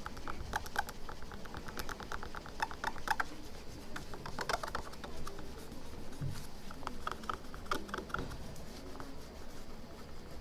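Quick scratching and scraping strokes in several short bursts as leftover glue is rubbed and scraped off the phone's LCD panel.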